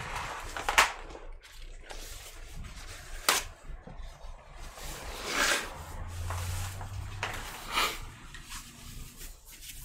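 Plastic laptop parts being handled and pushed: scattered sharp clicks and knocks with a few short scrapes, as the keyboard of a ThinkPad T460s is worked at to slide it out.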